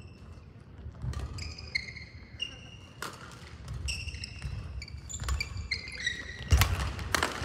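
Badminton rally: sharp racket strikes on a shuttlecock every second or two, with rubber-soled court shoes squeaking and thudding on the sports-hall floor as the players move.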